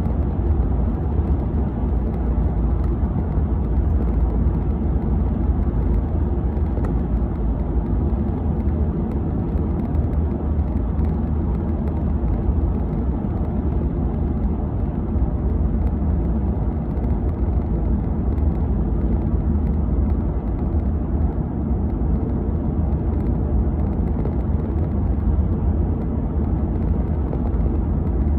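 Steady low rumble of a car in motion at motorway speed, heard from inside the cabin: road and tyre noise with engine hum, unchanging throughout.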